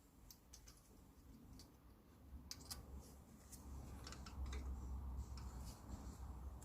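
Faint, scattered light clicks and metallic taps of brake pads and their small metal fittings being handled and seated in the caliper, over a low rumble in the middle.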